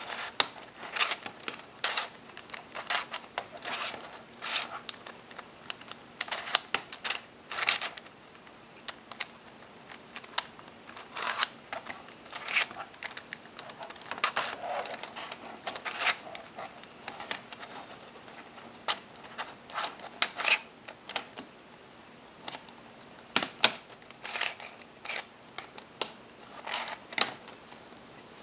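Plastic Triamese twisty puzzle having its layers turned by hand: quick clusters of clacking turns and scraping, with short pauses between them.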